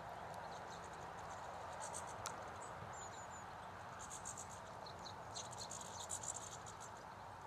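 Small songbirds calling faintly: high, short chirps and bursts of rapid twittering, including a quick run of three notes about three seconds in, over a steady background hiss.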